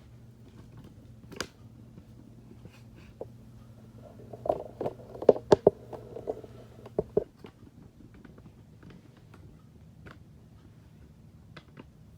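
Plastic K'nex parts clicking and knocking as the model is handled, with a quick run of sharp clacks in the middle and scattered single clicks either side.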